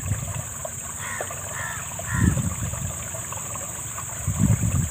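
Steady high-pitched insect drone over low rumbling outdoor noise, with louder low rumbles about two and four and a half seconds in.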